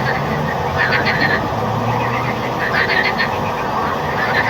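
A chorus of frogs croaking, with bursts of rapid, pulsed calls from nearby frogs about every second or two over a dense, continuous background chorus.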